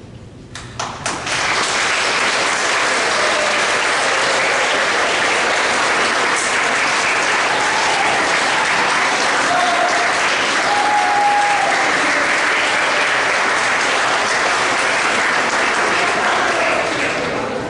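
Audience applauding: a few scattered claps swell within about a second into steady applause, which eases off near the end.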